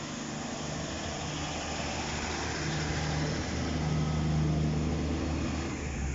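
Class 150 Sprinter diesel multiple unit moving past on its underfloor diesel engines, a steady low engine drone growing louder to about four seconds in, then cutting off sharply near the end as the unit goes by.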